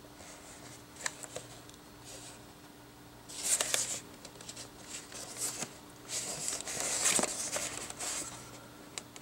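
A cardboard action-figure box with a clear plastic window, being turned over in the hands: scattered rustling and scraping, loudest about three and a half seconds in and again between six and eight seconds, with a few light clicks.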